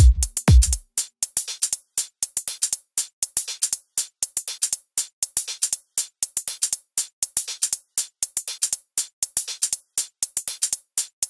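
Electronic background music with a drum machine: the deep kick drum and bass drop out under a second in, leaving a fast, steady clicking percussion pattern.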